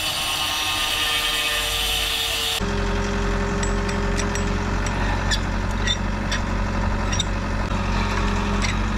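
Electric angle grinder grinding steel, rounding the corners of an anchor swivel's throat. About two and a half seconds in the sound changes to a steady low hum with a few light metal clicks.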